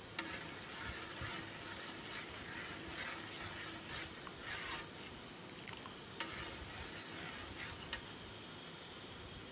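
A metal spoon stirring sugar syrup in a metal pot on the stove, with repeated swishing strokes and a few clinks of the spoon against the pot. The stirring keeps the sugar dissolving into the syrup.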